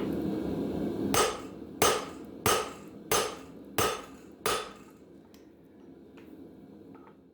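Six evenly spaced hand-hammer blows on steel at an anvil, about one and a half a second, each ringing briefly, over a steady low hum.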